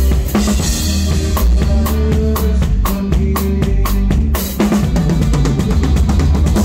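A band playing live, a drum kit with snare and rimshot strokes over a strong, steady bass line, with no singing.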